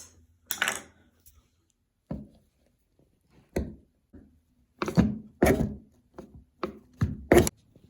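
Irregular sharp knocks and thuds, closer together and louder in the second half, as a stuck old Moen faucet cartridge is worked loose and pulled from the bathtub valve body.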